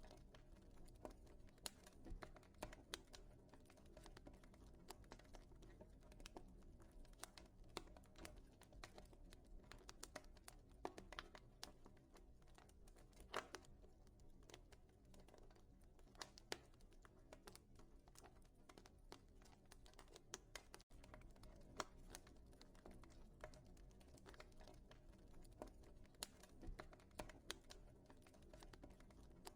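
Wood fire crackling in a fireplace: faint, irregular pops and ticks, with a few sharper snaps now and then.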